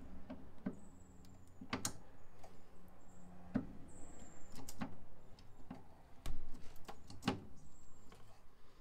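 Scattered light metallic clicks and knocks, about one a second, as a steering universal joint is worked by hand onto the splined shaft of the steering rack, with a few faint short squeaks.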